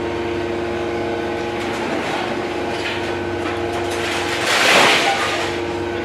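YD1600A hydraulic scrap metal baler running with a steady mechanical hum from its hydraulic power unit. A loud rushing noise, about a second long, rises over it near the end.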